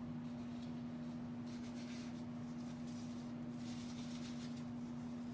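Faint rubbing of an alcohol prep pad wiping a stethoscope, in two short spells, about a second and a half in and again around four seconds in, over a steady low hum.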